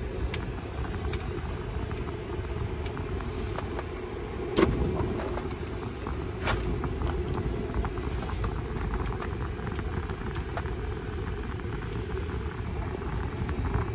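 A truck's engine and road noise heard from inside the cab while driving: a steady low rumble, with a light knock about four and a half seconds in.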